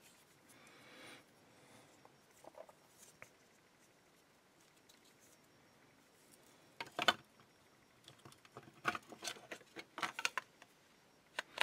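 Handling noises of a cordless screwdriver's motor and battery pack being fitted into its plastic shell: faint rustling, a sharp click about seven seconds in, then a run of smaller clicks and knocks.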